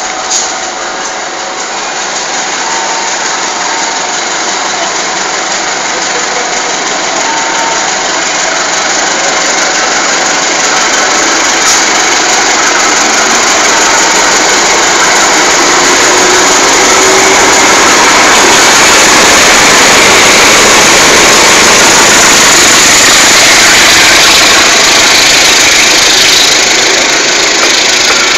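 Diesel locomotive hauling a passenger train past at close range: its engine running and the wheels rolling over the rails, growing steadily louder as it approaches, then a loud, steady rush of wheel noise as the coaches go by.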